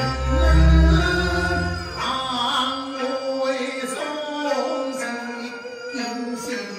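Teochew opera singing, a man's voice amplified through a microphone, over an instrumental accompaniment of sustained melodic notes. A deep low rumble sits under the first two seconds.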